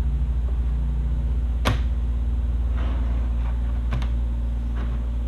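A steady low hum runs throughout, with one sharp click about a second and a half in and a few lighter taps later, as small parts and tools are handled on a workbench.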